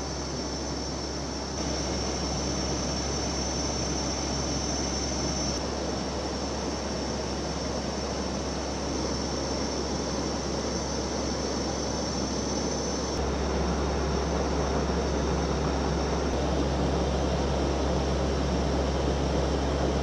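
Cabin and cockpit noise inside a C-130 Hercules-type turboprop in flight: a steady engine and propeller drone with air noise and a high thin whine. The level steps up about one and a half seconds in and again about thirteen seconds in.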